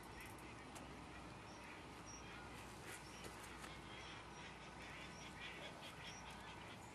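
Faint outdoor ambience over a low steady hiss, with birds calling in short high chirps every second or so.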